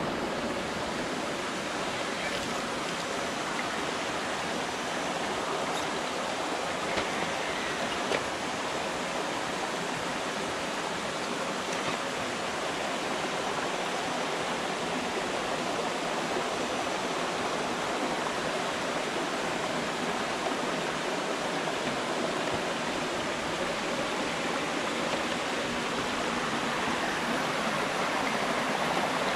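Steady rush of a shallow creek running over rocks, with two faint clicks about seven and eight seconds in.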